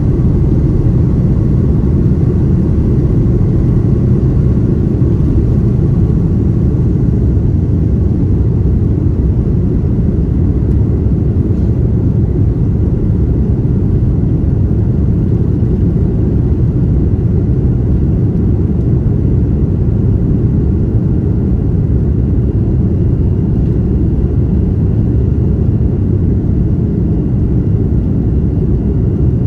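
Airbus A330-300's Rolls-Royce Trent 772 engines at takeoff thrust, heard inside the cabin: a loud, steady, deep rumble of engines and airflow as the jet lifts off the runway and climbs out.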